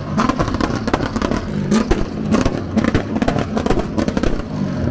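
A V8 sports car revving hard and loud, its exhaust firing a rapid stream of pops, crackles and sharp bangs over the rising and falling engine note.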